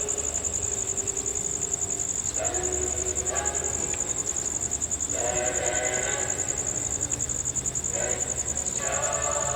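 Buddhist monks and laypeople chanting in unison in long held notes, the phrases breaking every one to three seconds. A steady high-pitched pulsing whine runs underneath.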